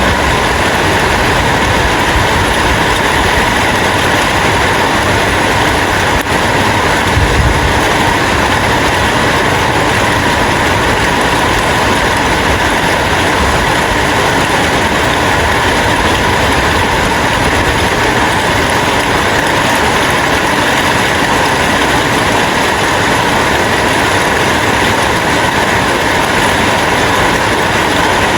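Rain falling steadily: a loud, even hiss, with a brief low rumble about seven seconds in.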